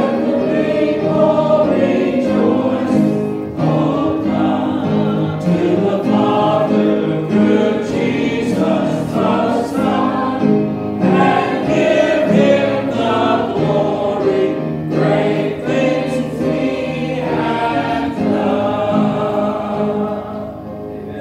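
Congregation singing a hymn together, quieter near the end.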